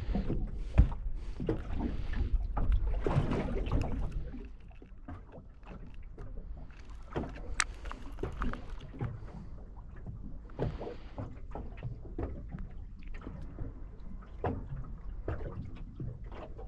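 Water slapping and lapping against the hull of a small boat at rest, with scattered knocks and clicks, louder for the first four seconds.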